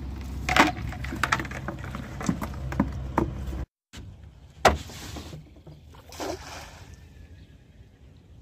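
Cast net being handled in a small metal boat: a series of clicks and knocks as the weighted net and its lines are gathered, then, after an abrupt cut, a sharp knock followed by a swish and splash as the net goes out onto the water.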